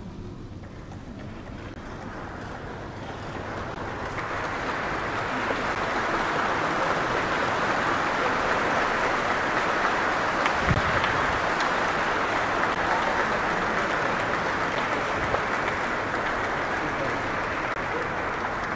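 Audience applauding, swelling over the first few seconds into steady clapping.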